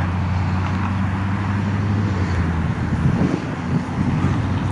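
Steady low rumble and hiss of outdoor background noise, with an even low hum and no distinct event.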